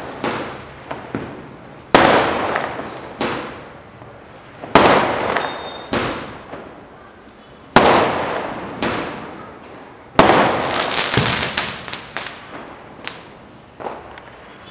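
Aerial firework shells bursting overhead: four loud bangs about every two and a half to three seconds, each trailing off in crackling, with smaller pops in between. The last burst, about ten seconds in, crackles longer before fading.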